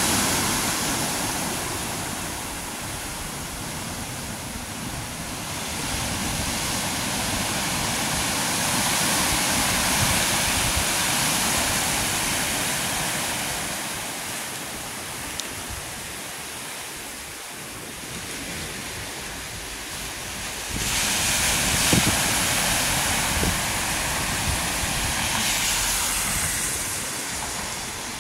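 Rushing noise of sea surf and gusty wind on the microphone, rising and falling in long swells and turning louder suddenly about three quarters of the way in.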